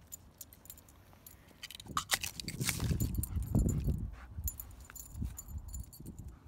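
German Shepherd moving about, her collar tags and leash clip jingling. A louder stretch of rustling and thumping starts about two seconds in and lasts a couple of seconds.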